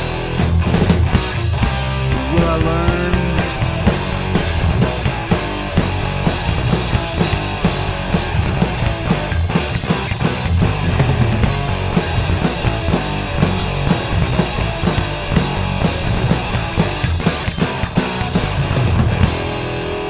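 Instrumental section of a hard rock/metal song: full band with distorted guitars, bass and a busy drum kit, no vocals. A bending guitar lick slides up and down a couple of seconds in.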